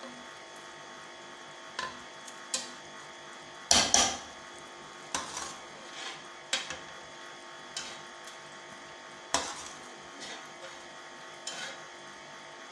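A slotted metal spoon scraping and clinking against a metal pressure cooker pot as cooked mutton pieces are lifted out. Irregular knocks come every second or so, the loudest about four seconds in and again about nine seconds in.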